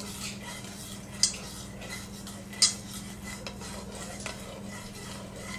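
A spoon stirring sauce in a stainless steel pot, scraping and tapping against the metal sides, with two sharper clinks about a second in and a little before the middle. A steady low hum runs underneath.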